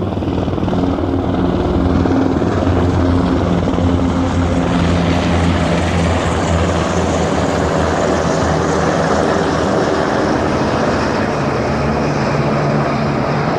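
A group of military helicopters flying over, a steady rotor and engine drone.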